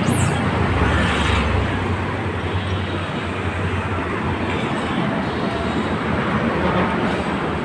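Steady road-traffic rumble from vehicles on the concrete overpasses, with a deeper, louder rumble swelling about a second in as a heavy vehicle passes.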